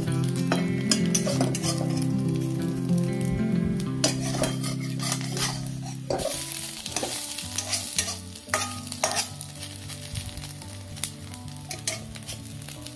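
Mashed cauliflower stalks sizzling as they fry in mustard oil in a pan, while a metal spatula scrapes and taps against the pan again and again. It is louder in the first half and quieter after about six seconds.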